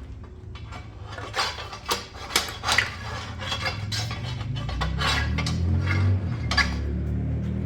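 Loose steel parts clinking and clanking against each other and the metal hub: about a dozen irregular sharp knocks, each with a short ring, the freed flywheel bushing and bearing being handled. A low rumble runs underneath, stronger a little after the middle.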